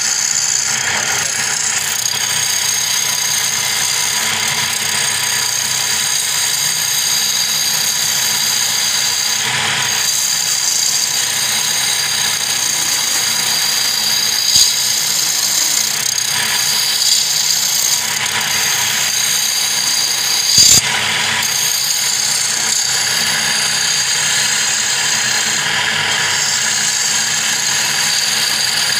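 Wood lathe running steadily while a hand-held turning chisel cuts into the spinning wooden blank, with a few short louder scrapes around the middle.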